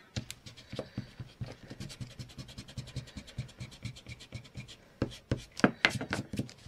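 Washi tape and card stock handled and rubbed down by fingers: a fast run of small scratchy clicks, then a few louder crinkly snaps about five seconds in.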